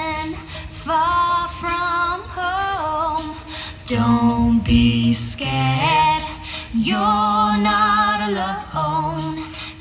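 A woman singing a slow, sustained melody with vibrato over backing music, from the show's soundtrack.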